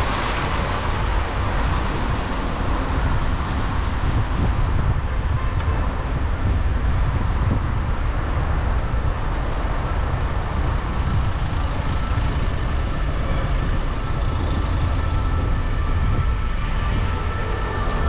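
Wind buffeting the microphone and road rumble from a bicycle being ridden along a wet street: a steady low rush.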